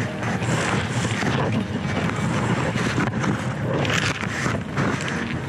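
Wind buffeting the microphone: a loud, uneven rumbling rush, with a few faint ticks in the second half.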